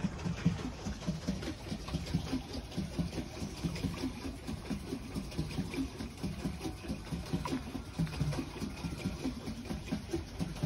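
Water sloshing and churning around a pedal boat as it moves across the lake, an uneven low rumble of many small splashes.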